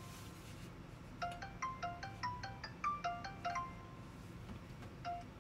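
Smartphone call tune ringing while an outgoing call waits to be answered: a quick run of short chime-like notes, a pause, then one more note near the end.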